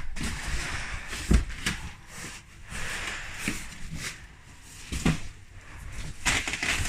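Drywall and insulation being torn out by hand: scattered knocks and thuds, with rustling and scraping between them.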